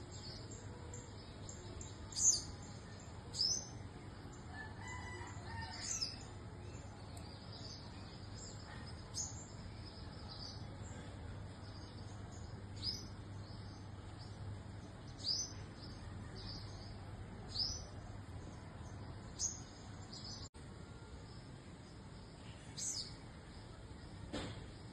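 Purple sunbird calling: about ten short, sharp, high-pitched notes that fall in pitch, given singly one to three seconds apart over a steady high background hiss.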